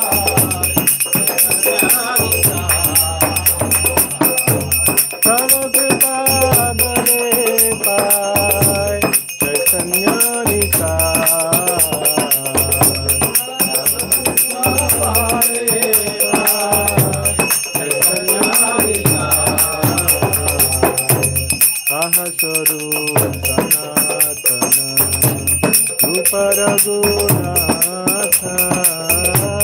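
Devotional kirtan singing over fast, continuous jingling of metal bells and hand cymbals, with low drum strokes, as played during a temple-style arati lamp offering.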